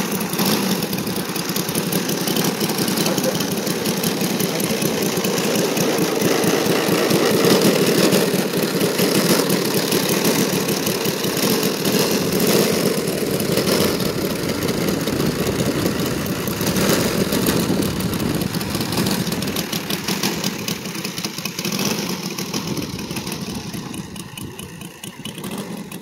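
Saito FA-60R3 three-cylinder four-stroke radial glow engine running in a model Bearcat plane. It runs steadily, gets a little louder several seconds in and eases off near the end.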